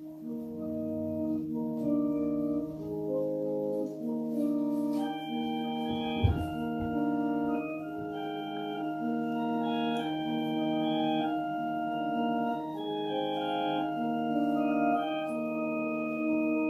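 Organ music, a piece of held chords that begins at once, with a single thump about six seconds in.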